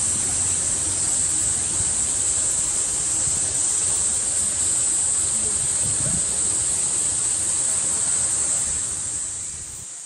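Cicada chorus: a steady, high-pitched drone over a low rumble, fading out near the end.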